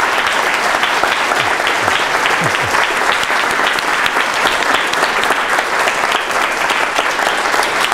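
Audience applauding: steady, dense clapping from a roomful of people.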